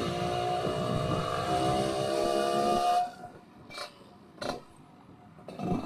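Yamaha RX-King two-stroke single running under way through an underslung aftermarket exhaust, giving off a steady, pitched humming drone that the owner blames on a wrongly set header pipe. The drone cuts off about halfway through. Two short clicks come in the near-quiet gap, and the drone returns near the end.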